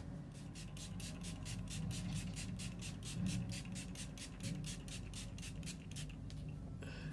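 Rapid scratchy brushing strokes of a mascara wand, about five a second, stopping just after six seconds in. Under them runs the steady low drone of a lawn mower.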